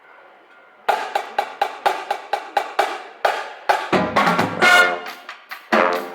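Marching band starting a piece: a second of quiet, then sharp percussion hits at a steady beat of about four a second. About three seconds in, brass chords come in over the beat, and low bass drum hits join soon after.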